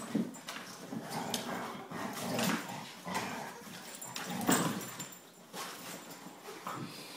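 Two dogs play-wrestling, a Labrador retriever and a Chesapeake Bay retriever puppy, with irregular growls and snarls. The loudest bursts come about two and a half and four and a half seconds in, over scuffling on the dog bed.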